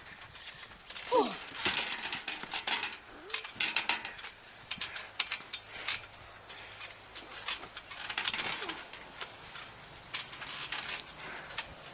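Irregular clatter and knocks of trampoline springs and frame as wrestlers bounce and land on the mat, with a short falling cry about a second in.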